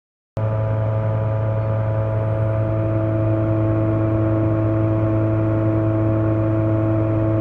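Lincoln 455 welding power source running on test after repair: a loud, steady electrical hum with a whir, starting abruptly about a third of a second in.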